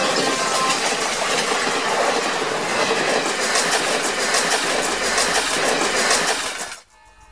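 Train sound effect: the steady rumble of a train rolling along, with a rhythmic clickety-clack of wheels over rail joints in the second half, cutting off suddenly near the end. A held horn note dies away just after the start.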